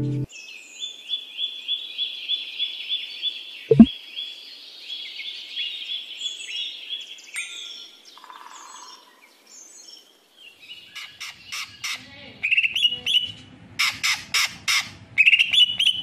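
Songbird chirping in quick runs of high repeated notes, with one sharp click about four seconds in. After a short lull, louder and sharper calls come in over a low background rumble.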